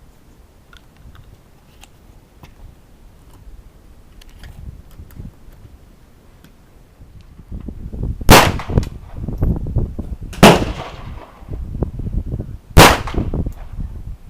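Three loud handgun shots about two seconds apart, starting about eight seconds in, over a low rumble on the microphone. Before them, faint scattered shots from other firing positions on the range.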